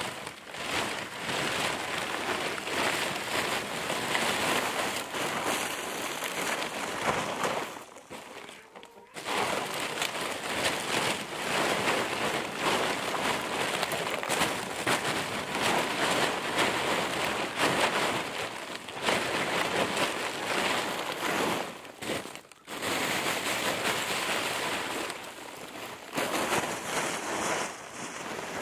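Heavy white-and-black plastic lumber tarp rustling and crackling as it is pulled out of a pile and hauled along, stopping briefly twice.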